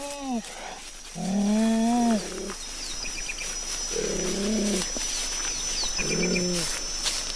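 Big-cat calls built from cheetah and cougar recordings as an American cheetah (Miracinonyx) sound effect: short pitched calls, each rising then falling, about every two seconds. Faint high chirps repeat behind them.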